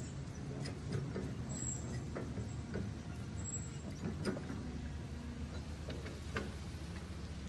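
Toy tracked dump truck running as it crawls through sand: a steady low motor hum with scattered clicks from the tracks and gears.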